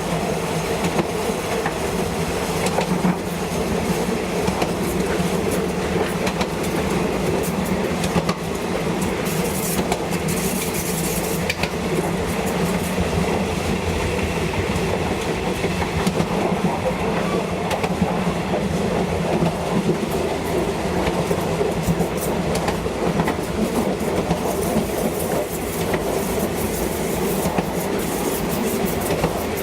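Train running steadily along the track, a constant drone with the wheels clicking over the rails, and a brief high hiss about ten seconds in.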